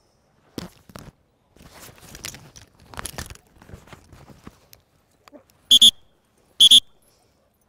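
Dogs scuffling and running in play on grass, with rustling and footfalls. Near the end come two short, sharp high-pitched squeals about a second apart, the loudest sounds.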